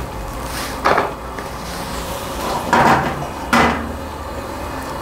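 A stainless steel wok being handled on a gas burner's grate: a few sudden metal knocks and scrapes as it is shifted and lifted to swirl the heating oil, over a steady low rush.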